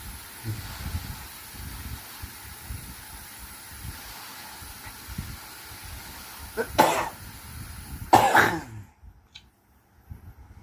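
A sleeping pet snoring with faint, rough low breaths over a steady hiss, then two loud snorts about a second and a half apart.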